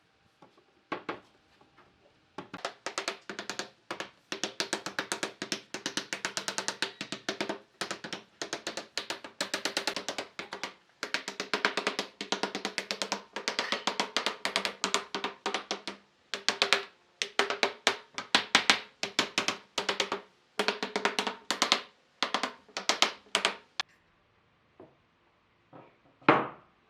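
Rapid repeated knocking on wood, several strikes a second, each with a short ringing tone. The strikes come in long runs broken by brief pauses, with a few single knocks at the start and one loud knock near the end.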